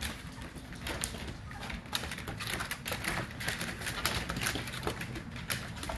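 Puppies moving about, claws clicking and scratching irregularly on the surface under them.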